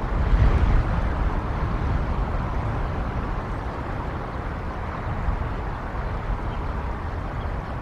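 Wind buffeting an outdoor camera microphone: a steady rumbling noise with a stronger gust about half a second in.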